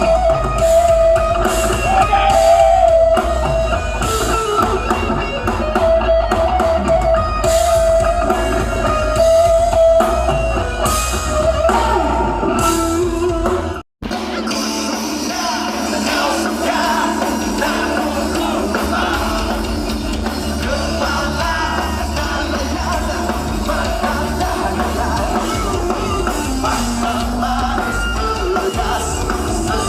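Live rock band playing loud: drum kit, electric guitar and singing. The sound cuts out abruptly for a moment about halfway through, then the band continues.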